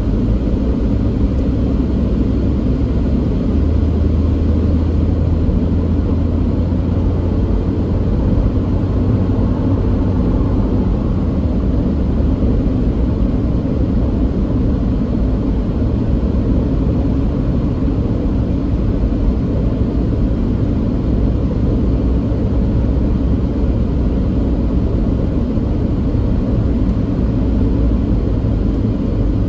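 Steady road noise of a moving car heard from inside the cabin: a low rumble of tyres and engine. A deeper hum swells for several seconds about three seconds in.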